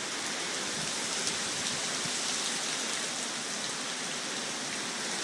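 Hurricane rain falling steadily, an even hiss with no let-up.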